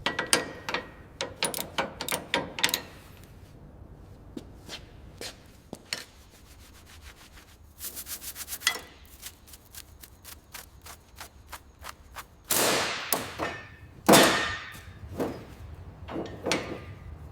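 Hand tools working on a car's shock absorbers: a clatter of sharp metal clicks and knocks, a quick even run of ticks about eight seconds in, and a short hiss followed by a loud knock near the end.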